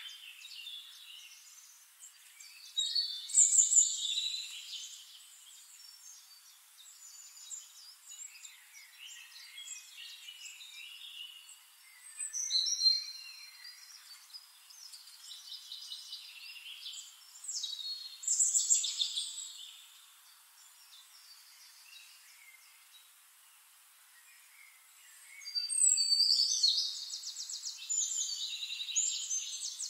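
Birds chirping and trilling in bursts a few seconds apart, with a longer fast trill near the end.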